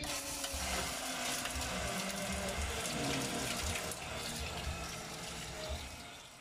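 Water gushing in a steady stream from the open end of a PVC pipe fed by an electric water pump, splashing onto the pump base and over hands; it eases off near the end.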